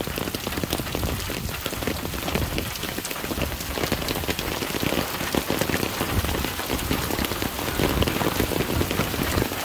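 Steady rain falling: a constant hiss thick with the ticks of individual drops.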